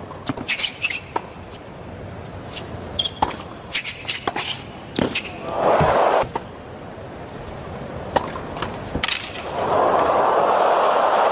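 Tennis rally on a hard court: repeated racket strikes on the ball with footwork between them, and a brief swell of crowd noise about six seconds in. Near the end the stadium crowd breaks into loud applause and cheering as the point is won.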